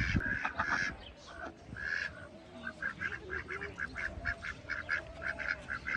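Farmyard waterfowl calling: a few longer honking calls at first, then a steady run of short repeated calls, about three or four a second, through the second half.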